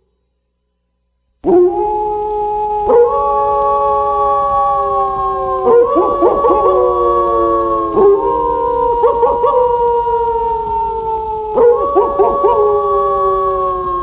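After about a second and a half of silence, several wolves howl together in chorus: long, slowly falling howls at different pitches overlap, with new howls joining every few seconds and short wavering yips among them.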